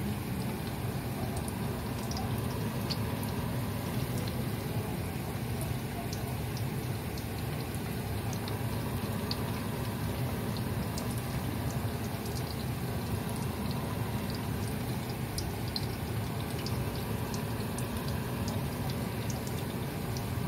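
Spring rolls deep-frying in a pot of hot oil: steady sizzling and bubbling, with scattered tiny crackles and pops.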